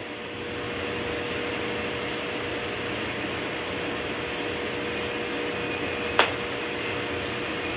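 Steady background hiss of room noise, like air conditioning, with a faint steady hum-tone through it and one short click about six seconds in.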